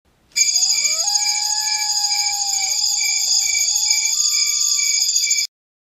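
Intro sound effect: a steady, shrill, high-pitched sound pulsing a couple of times a second, with long sliding whistles over it. It starts suddenly and cuts off abruptly.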